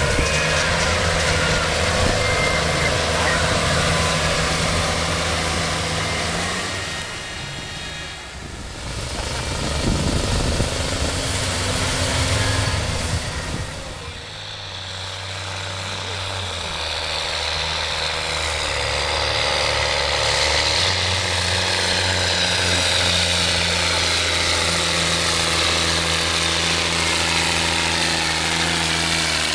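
Large farm tractor's diesel engine running hard under heavy load while dragging a tractor-pulling weight-transfer sled. The sound dips and surges partway through, then settles into a steady drone with a high whine rising in pitch.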